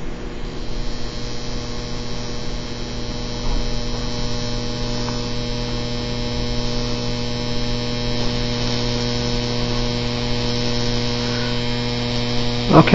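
15,000-volt AC arc from a neon sign transformer burning across an adjustable rod spark gap: a steady electrical buzz with a hiss above it, from the arc and the transformer. It grows a little louder about three and a half seconds in.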